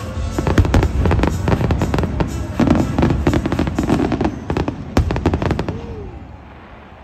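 Aerial fireworks shells bursting in a dense, rapid barrage of bangs that thins out after about five seconds. Music plays underneath.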